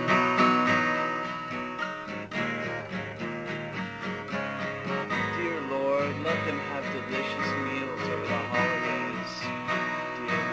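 Guitar-led band music in an instrumental passage without singing.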